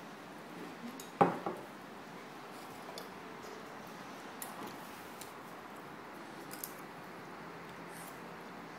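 A fork clinking against a bowl as a small child scoops rice: one sharp clink about a second in, a softer one just after, then a few faint taps.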